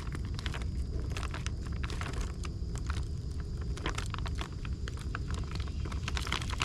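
A bag of chicken worm treats being handled and pressed shut, with many small crinkles and clicks, over a steady low rumble.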